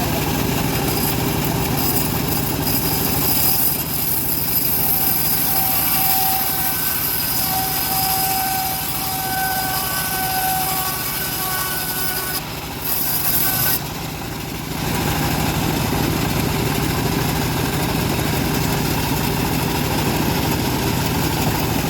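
Bandsaw mill running steadily and sawing timber. Its mechanical drone carries a thin whining tone partway through, and the level dips briefly a little past halfway.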